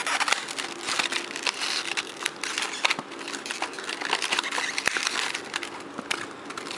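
Plastic packaging crinkling and clicking as earbuds are pried and slid out of a tight blister pack, with many sharp crackles.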